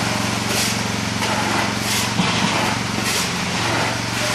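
Grillo G85d two-wheel tractor's diesel engine running steadily, with three short scrapes of shovels digging humus for a wheelbarrow.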